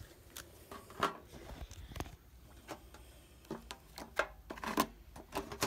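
Handling noises: scattered light clicks and knocks with soft rustling, as a metal tin of trading cards is handled and the phone is moved.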